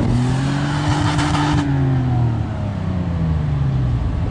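A 4x4's engine revving hard as it climbs a sand dune: the pitch rises for about a second and a half, then falls away slowly as the driver eases off. A hiss sits over the engine and cuts off suddenly before the two-second mark.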